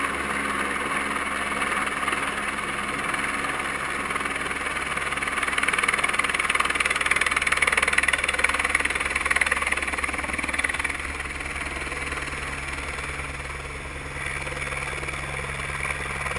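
Helicopter coming in to land on snow: steady rotor chop and turbine noise, growing louder toward the middle and easing off in the second half.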